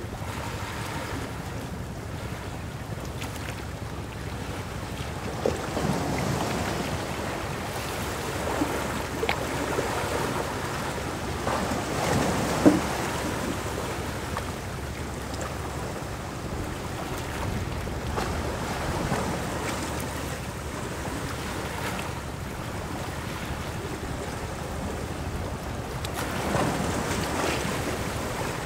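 Small sea waves washing and splashing against shoreline rocks, the wash rising and falling in several surges, with a sharp splash about twelve seconds in.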